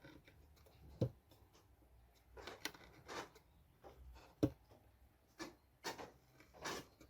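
Hand-tool work on a workpiece: two sharp knocks, about a second in and about four and a half seconds in, with several short scraping or rubbing strokes between and after them.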